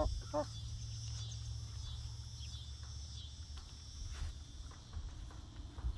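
Young hens give a few short, soft, wavering calls right at the start, then go quiet. Under them a steady high-pitched insect chirring runs throughout, with a low outdoor rumble.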